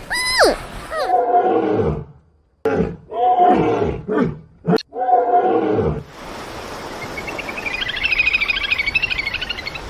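A big cat roaring and growling in several short calls that fall in pitch, followed by a fast, even, higher-pitched pulsing sound over the last few seconds.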